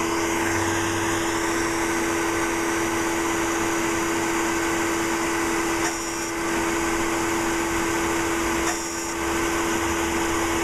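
Steady whirring hum and rushing air of a cosmetic laser machine's cooling, with a constant droning tone.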